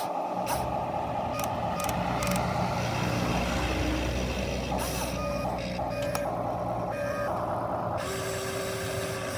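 Radio-controlled model excavator running: a steady whir of small electric motors and gears, with short tones and a few sharp clicks here and there.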